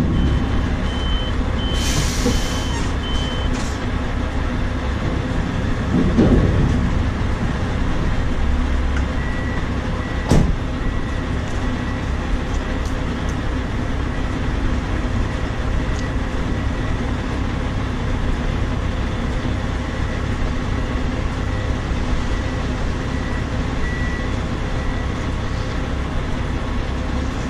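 Heavy truck diesel engine running steadily at low revs, with reversing alarms beeping: a higher-pitched one in the first few seconds, then a lower one from about nine seconds in. A short hiss of air, as from an air brake, comes about two seconds in.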